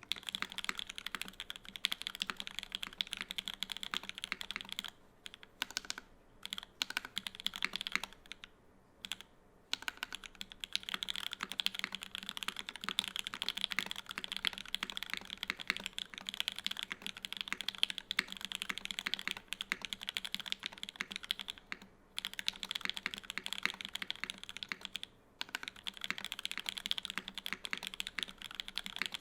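Continuous fast typing on a KFE CE custom mechanical keyboard with lubed CannonKeys Lavender linear switches in an aluminum plate, under GMK keycaps; a rapid run of keystrokes broken by a few brief pauses.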